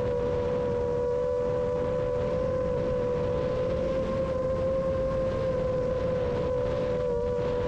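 A 7-inch FPV quadcopter's brushless motors and propellers whining steadily in fast flight, two close tones wavering a little in pitch and rising slightly around the middle, over a steady rushing noise.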